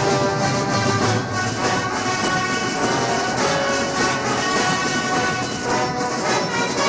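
A corps of drums marching band playing, a tune on wind instruments over drums, steady throughout.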